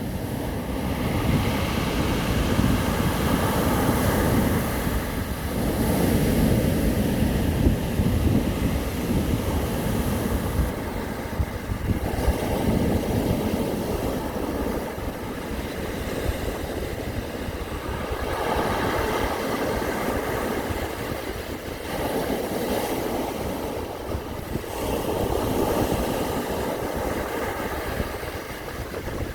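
Sea waves breaking and washing in, a continuous rush of surf that swells with each new wave every several seconds.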